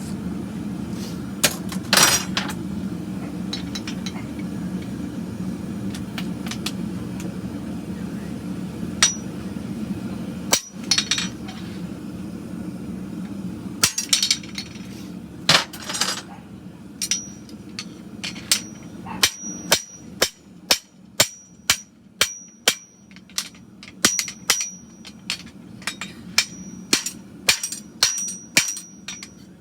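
Hammer blows on a hot steel horseshoe on an anvil: a few scattered strikes at first, over the steady hum of a gas forge, then a regular run of ringing strikes about one and a half a second, typical of stamping the nail holes of a hand-made Shire horse shoe.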